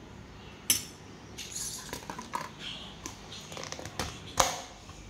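Steel spoon clinking against a small steel bowl, with scattered light clicks and two sharp knocks, one about a second in and a louder one near the end, as a plastic tub is pressed shut.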